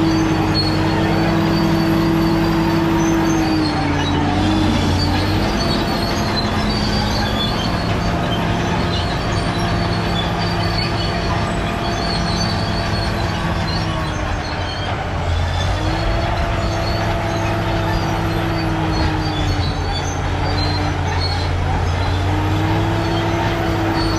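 Caterpillar D7G bulldozer at work: its diesel engine runs steadily under load with a strong whine that dips in pitch a few times, over scattered high squeaks from the machine.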